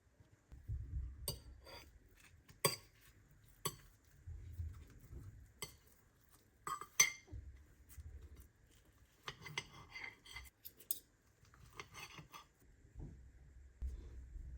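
Cutlery and crockery clinking in a kitchen: a dozen or so scattered sharp clicks and knocks, with dull low thuds between them.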